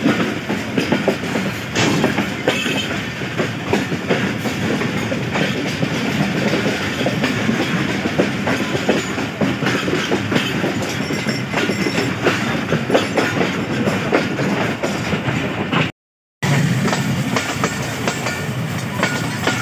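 Passenger train running along the track, a steady rumble with the clickety-clack of wheels over rail joints, heard from beside an open coach window. The sound cuts out for a moment about sixteen seconds in, then the same train noise resumes.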